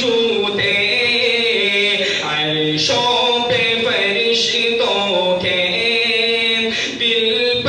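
A man reciting an Urdu naat unaccompanied, in long, ornamented held notes with brief breaks for breath.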